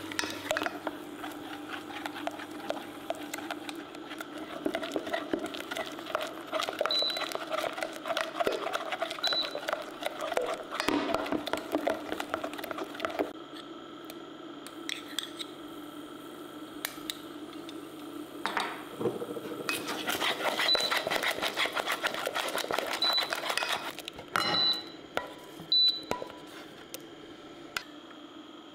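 A spatula and spoon scraping and stirring scrambled eggs against the sides and bottom of a stainless steel saucepan, a rapid run of small scrapes and clicks in two spells with a quieter stretch between, over a steady low hum. A few sharp knocks near the end.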